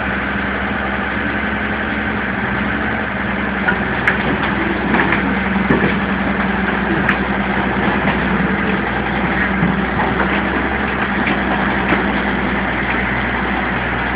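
Hitachi excavator's diesel engine running steadily, with a few sharp knocks between about four and seven seconds in.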